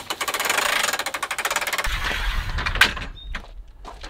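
A manual RV patio awning being pulled out: its roller clicks rapidly as the fabric unrolls, then stops a little under two seconds in. About three seconds in comes one sharp clack, followed by a few lighter knocks as the arms are set.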